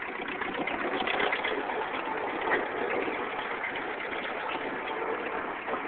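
Farmall B tractor's four-cylinder engine running steadily, mixed with a busy rattle of small clicks.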